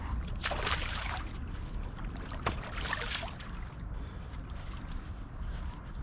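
Wind buffeting the microphone in a steady low rumble, with a few brief rustling noises about half a second in and again around three seconds, and a sharp click between them.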